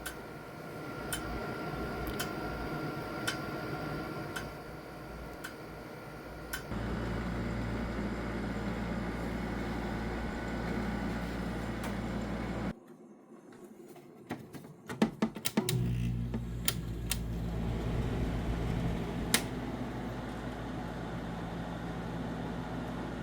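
Sharp and Fedders air conditioners running with a steady fan and compressor hum. A light tick comes about once a second at first. About seven seconds in the hum turns deeper and fuller. Around thirteen seconds it drops away for a few seconds with a run of clicks, then the deep hum resumes.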